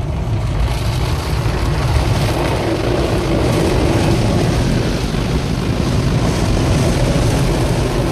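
Automatic car wash heard from inside the car cabin: water jets spraying and brushes scrubbing over the windshield and body, with a steady low rumble.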